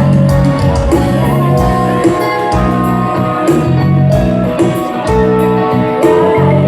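Instrumental music with sustained held notes and a regular beat.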